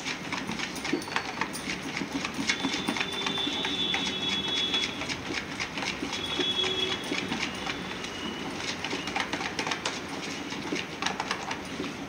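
Chocolate cake batter being stirred by hand in a plastic mixing bowl: a steady run of quick clicks and scraping.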